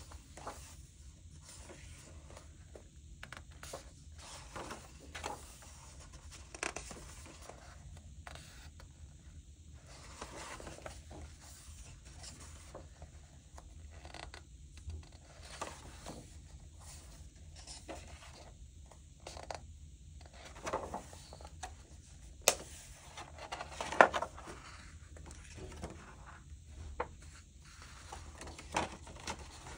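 Pages of a coloring book being turned one after another: repeated paper swishes and rustles as hands brush over and flip the pages, with one sharp click about three-quarters of the way through.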